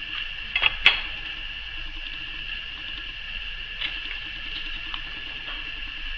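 A few light clicks and taps from small craft pieces being handled and pressed into place on a work surface, with two sharper clicks just under a second in. A steady high-pitched hiss runs underneath.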